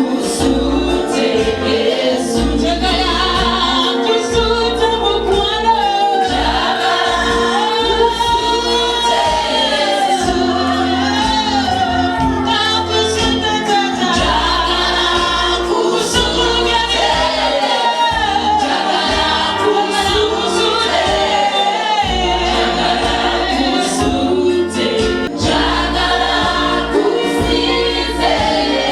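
Gospel choir singing with a band: a sung melody over a steady bass line and regular drum beats.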